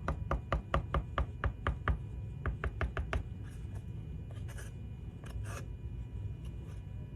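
Rapid light taps on wood, about four a second, as glue is dabbed from a bottle onto a wooden shelf part. They stop about three seconds in, and a few fainter knocks follow.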